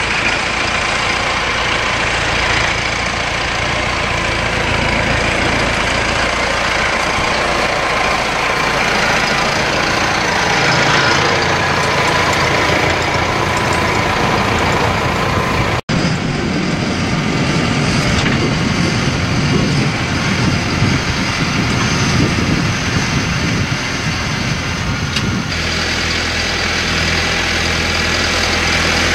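Massey Ferguson 5711 tractor's four-cylinder diesel engine running steadily under load as it tows a trailer of wrapped silage bales with another bale on the front loader. The sound breaks off for an instant about halfway through, then carries on with more low rumble.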